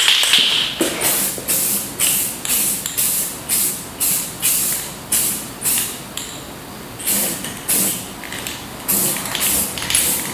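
Aerosol can of Rust-Oleum acrylic enamel spraying in short, quick hissing bursts, about two or three a second, with a brief pause a little past six seconds in, as a light first coat of black paint goes onto a wheel.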